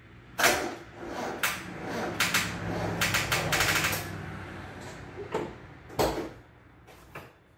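Mazda Miata 1.6-litre four-cylinder being cranked over by the starter for the first time after a head rebuild, with a run of irregular pops and clicks for about four seconds, then stopping without settling into a run. A few separate knocks follow.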